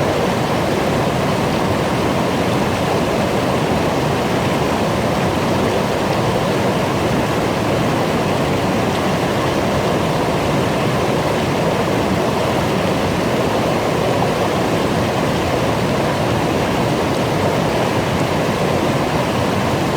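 Small brook babbling over rocks: steady, even rushing and splashing of running water.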